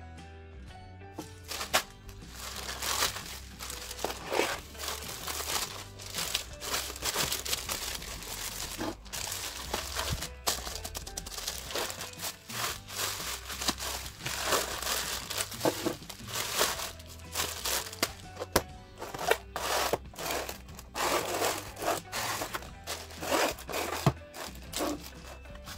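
Plastic courier mailer bag crinkling and tearing as it is ripped open and handled, with cardboard boxes sliding out of it. The crinkling starts about a second and a half in, over background music.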